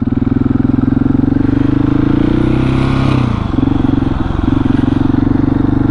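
Husqvarna 701's single-cylinder engine running under throttle; its note falls about three seconds in, then holds steady.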